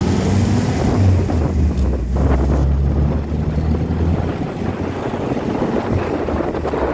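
WW2 Jeep's four-cylinder flathead engine running at road speed, with heavy wind buffeting on the microphone in the open vehicle. The low engine drone softens about four seconds in.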